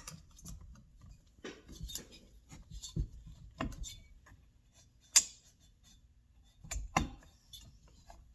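Light metal clicks and knocks from hands fitting a chainsaw carburetor onto its mounting studs, scattered and irregular, with the sharpest click a little past the middle.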